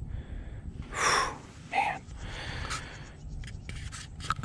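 A man breathing out hard, then a shorter breath, with a few small handling clicks near the end.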